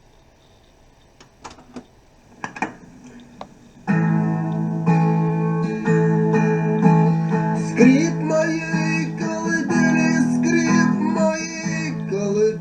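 Faint tape hiss with a few clicks, then about four seconds in an acoustic guitar starts strumming chords: the instrumental intro of a song played back from a cassette.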